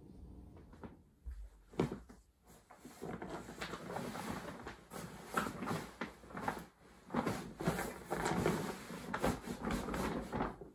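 Things being handled in a small room: an irregular run of knocks and clatters with rustling between them, starting about a second in, the sharpest knock near the start.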